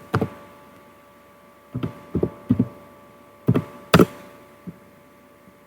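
Computer mouse clicks: about eight short, sharp clicks at uneven intervals, several bunched together in the middle, over a faint steady electrical hum.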